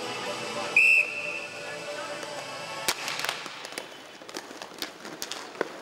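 A short, sharp high whistle blast about a second in, over background music that fades away; then, from about three seconds in, a run of sharp clacks and knocks of sticks and the plastic puck on the rink floor and boards as inline hockey play goes on.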